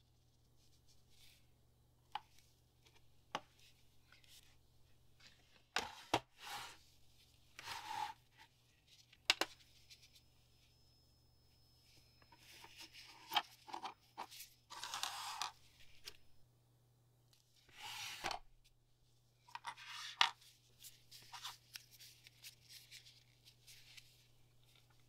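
Close handling noises of resin crafting: gloved hands rustling, with light taps and scrapes as small resin pieces and a UV resin brush bottle are handled and set down. They come as scattered short rustles and sharp clicks, bunched into a few clusters.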